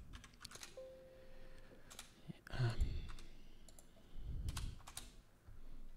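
Quiet, scattered clicks of computer keyboard keys and mouse buttons at a desk.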